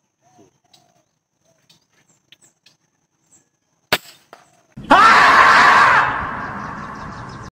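A single sharp rifle shot about four seconds in, then the screaming-marmot meme: a loud, long yell for about a second that slowly dies away.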